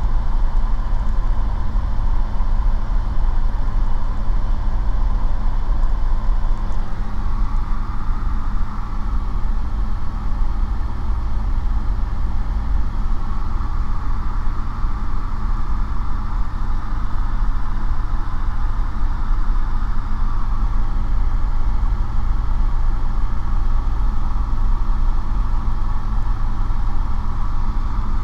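Steady drone of a light aircraft's piston engine and propeller in level cruise flight, heard from inside the cockpit.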